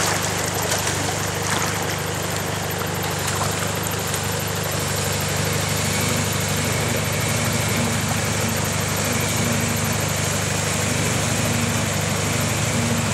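Toyota Hilux D-4D turbo-diesel engine idling steadily. From about halfway a second low hum comes and goes in short spells.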